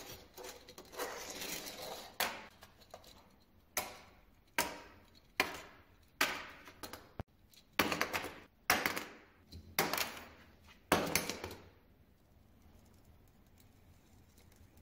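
Small plastic toy jet ski pushed across a wooden workbench top, scraping at first, then banged and bounced against the board in about ten sharp knocks, roughly one a second, that stop near the end.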